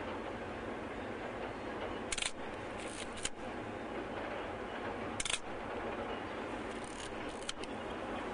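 Distant diesel freight train hauled by V/Line T class locomotives, a steady rumble as it crosses the trestle. A handful of short, sharp clicks cut through it: two about two to three seconds in, one about five seconds in, and three close together near the end.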